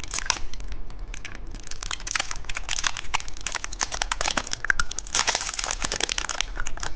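Candy wrapper crinkling as a piece of dice candy is unwrapped: a dense run of small crackles that gets busier about five seconds in.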